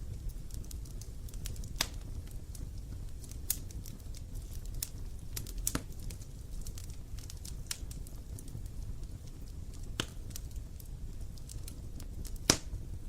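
Wood fire crackling, with irregular sharp pops over a low steady rumble; the loudest pop comes near the end.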